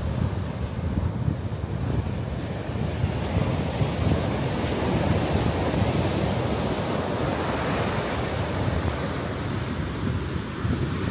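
Ocean surf breaking and washing up a sandy beach in a steady wash of noise, with wind rumbling on the microphone.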